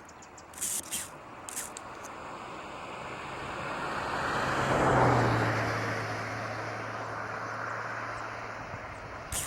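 A motor vehicle passing, getting louder to a peak about halfway through and then fading, with a low steady engine hum that carries on after the peak.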